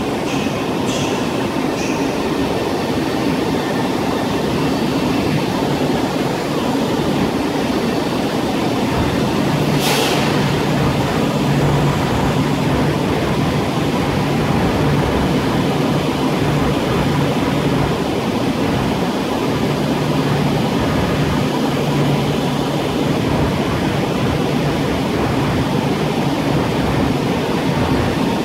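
An ED250 Pendolino electric trainset rolls slowly along the platform with a steady rumble of wheels and running gear. There are faint high squeals in the first couple of seconds and a brief hiss about ten seconds in, after which a low steady hum sets in.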